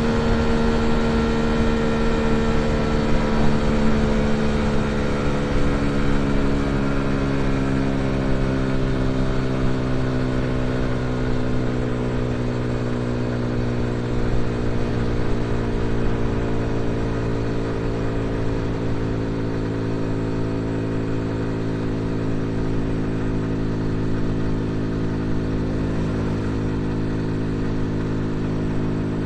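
Dayun Flasher 200 motorcycle's engine running in gear at road speed, its note slowly falling over the first half as the bike slows, then holding steady, with wind rush on the microphone.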